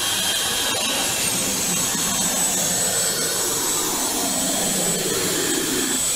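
Lollipop vending machine's suction blower running steadily, a loud rushing hiss with a high whine, as its suction tube holds a lollipop and lifts it toward the prize chute. A lower motor hum underneath rises slightly and stops near the end.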